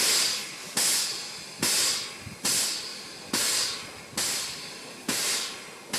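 Narrow-gauge steam locomotive 'Sezela' chuffing slowly with its cylinder drain cocks open: a sharp hiss of steam about every 0.85 seconds, each one fading before the next.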